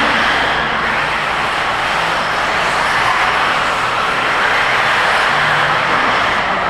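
Several 1/8-scale radio-controlled buggies racing, their motors and tyres making a loud, steady blend of noise.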